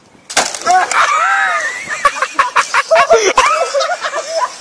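A sudden crash and splash about a third of a second in as a man on a wooden plank drops into the water, followed by loud, excited shouting and shrieking voices.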